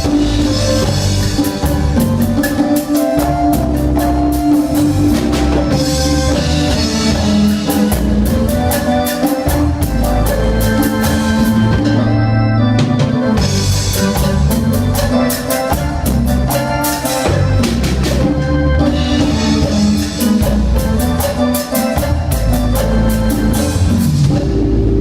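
Live band playing an instrumental passage between sung verses: drum kit keeping a steady beat under bass and keyboard lines, with no singing.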